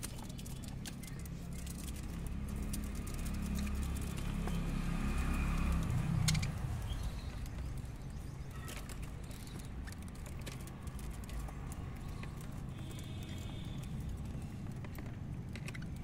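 Budgerigars in a wire cage: scattered light clicks and taps, with a few short high chirps about a second before the start and again near the end, over a low rumble that swells and then eases about six seconds in.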